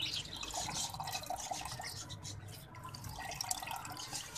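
A thin stream of sardai liquid trickles and drips into an aluminium pot as a wet cloth bundle of ground almond-and-fennel paste is squeezed, the last of the juice being strained out. Many small, quick drip ticks.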